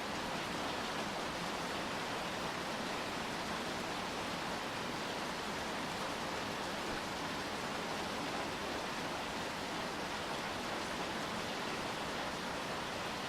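Steady rain falling: an even hiss with no separate drops or other sounds standing out.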